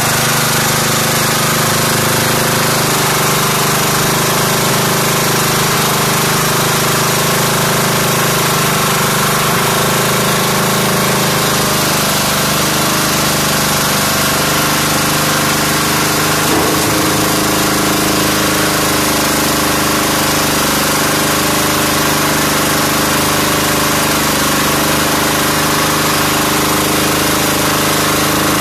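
Small single-cylinder air-cooled diesel engine on a portable material hoist, running steadily with an even clatter while the hoist's bucket is worked up and down the mast. A brief knock sounds about halfway through.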